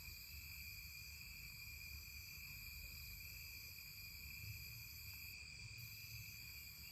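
Faint, steady night chorus of crickets, several unbroken high-pitched trills at once.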